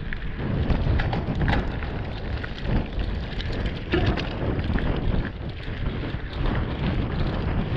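Wind buffeting an action camera's microphone on a mountain-bike ride: a steady low rumble with irregular knocks and rattles from the bike.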